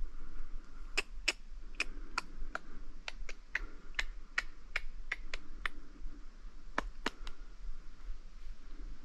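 A string of sharp ticks at irregular spacing, roughly one or two a second, that stop about seven seconds in.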